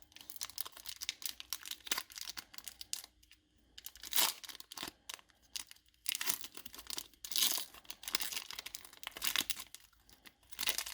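Foil Pokémon TCG booster pack wrapper crinkling and being torn open, in irregular rustling bursts, the loudest about four, seven and nine seconds in.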